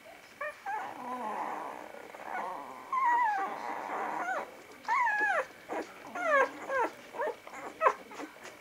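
Newborn vizsla puppies whimpering and squeaking while nursing at their mother. A rough, wavering murmur is followed, about halfway through, by a run of short, high squeaks that fall in pitch.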